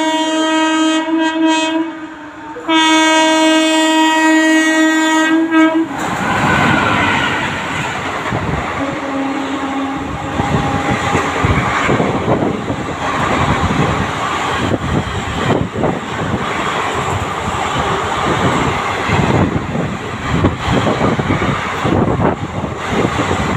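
Superfast express train sounding its horn in two long steady blasts, the second ending about six seconds in. Then the train rushes past at speed: a loud, steady rush of wheels and wind with rapid clatter from the wheels on the rails.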